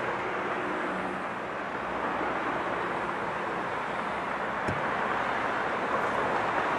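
Steady outdoor street noise, an even hiss of distant traffic, with one faint click about two-thirds of the way through.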